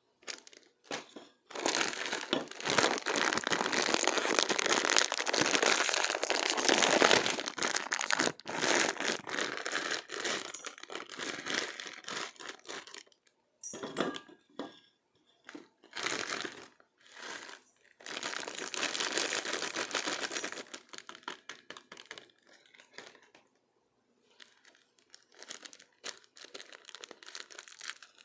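Plastic instant-noodle packaging crinkling and tearing as it is handled and opened, with a long stretch of steady crackling in the first half, then shorter bursts and fainter rustles later.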